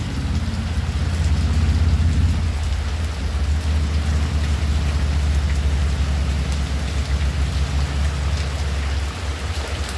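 Heavy rain falling steadily on the roof and garden, with water streaming off the roof edge. A steady low rumble runs underneath, and it eases somewhat about two and a half seconds in.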